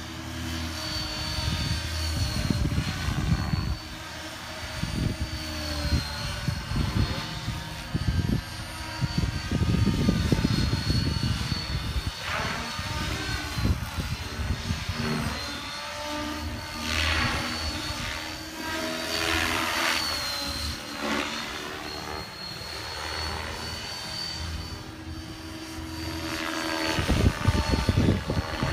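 Align T-REX 550L Dominator electric RC helicopter flying overhead: a steady high whine with rotor sound that sweeps up and down in pitch as it manoeuvres.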